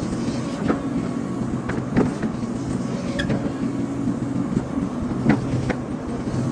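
Hydraulic excavator's diesel engine running steadily, with a few sharp knocks and clicks from the machine as it works.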